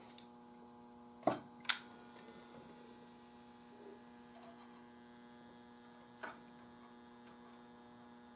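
Steady mains-frequency hum with a ladder of higher overtones from a transformer soldering gun heating a bad solder joint. A few sharp clicks come through it, two close together about a second and a half in and one more near six seconds.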